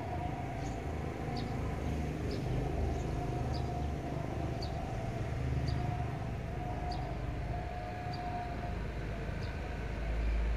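Outdoor background sound: a steady low rumble, a faint, slightly wavering tone held for most of the stretch and fading near the end, and short high chirps about once a second.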